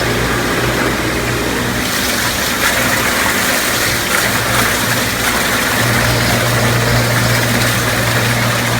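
Recirculating pump of a dish-room pre-rinse recycler running with a steady hum while water sprays and splashes out of it. The spray grows louder about two seconds in as the red pressure valve is opened up.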